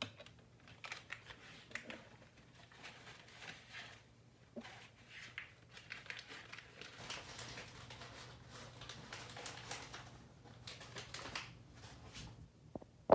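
Plastic piping bag rustling and crinkling as it is handled and snipped with scissors: faint, irregular rustles and small clicks, with one sharp knock near the end.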